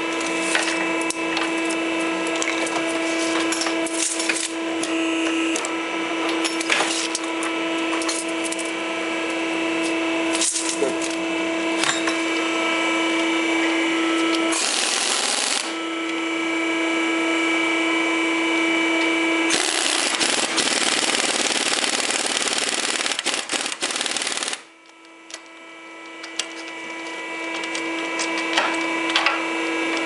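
A powered wire-rope crimping press runs with a steady hum, with scattered metallic clicks and knocks of the tooling. The hum gives way twice to a loud hiss: briefly about halfway through, and for about five seconds later on. After the longer hiss it drops off and gradually builds back up.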